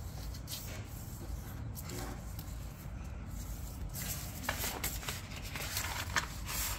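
A square sheet of paper being handled and folded: soft rustling and crinkling, with a cluster of sharper crease sounds from about four seconds in.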